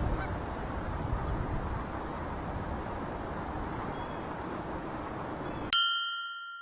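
Outdoor hiss and rumble with Canada geese honking faintly. Near the end a single bright bell-like ding sound effect strikes and rings down as the outdoor sound cuts out, marking the goose count shown on screen.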